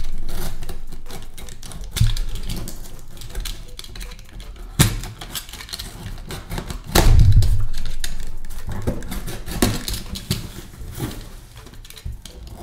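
Snap-off utility knife slicing through packing tape on a cardboard shipping box, with scratching and crackling from the tape and cardboard. Several dull knocks come as the box is handled, the loudest about seven seconds in.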